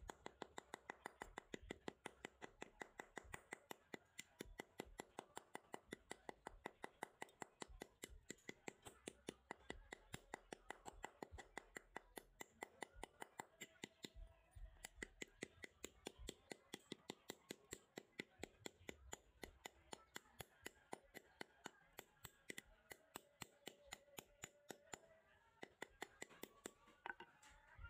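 Hammer tapping rapidly and evenly on a rusty metal rod, about four strikes a second, knocking the rust scale off it.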